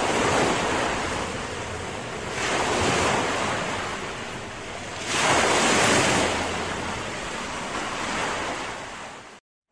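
Ocean surf: waves washing in and drawing back, swelling three times in slow surges, then cutting off suddenly just before the end.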